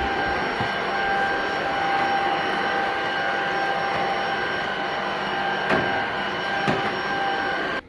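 Tocmoc T230 cordless stick vacuum running on a hard floor: a steady rush of air under a thin, steady whine, with two brief clicks in the second half. The motor cuts off suddenly near the end.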